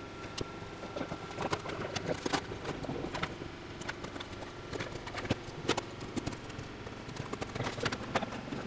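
Rapid, irregular knocks and clicks of hands and tools working on a fiberglass car body, over a faint steady hum.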